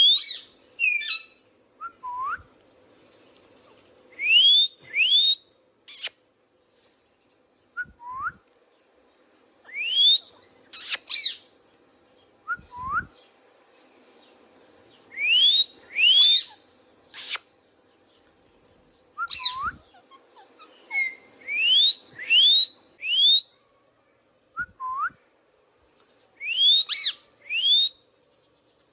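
Indian ringneck parakeet whistling and calling: repeated short rising whistles, often in twos or threes, mixed with sharp high chirps and short lower falling notes, with pauses between the groups.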